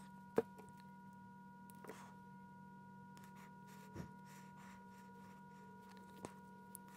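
A faint steady hum of a few pure tones under a handful of light clicks and taps from small plastic battery holders and double-sided tape being handled. The clearest tap comes about half a second in.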